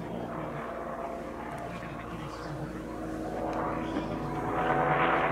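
Sopwith Triplane's Clerget 9B rotary engine running in flight overhead, a steady engine drone that grows louder over the last couple of seconds.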